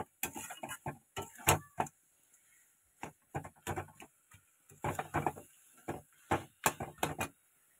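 A metal spatula scraping and knocking against a metal karahi as cooked cabbage is stirred, in irregular strokes with a short pause about two seconds in.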